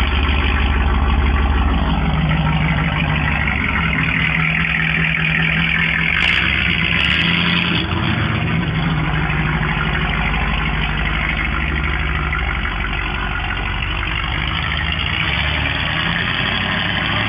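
Third-generation Pontiac Firebird's engine idling steadily.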